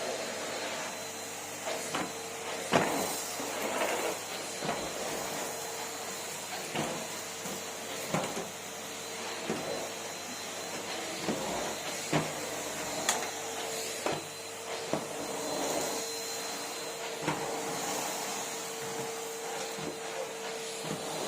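Numatic Henry cylinder vacuum cleaner running steadily, a constant motor hum over a hiss of airflow, with frequent knocks and clicks scattered throughout.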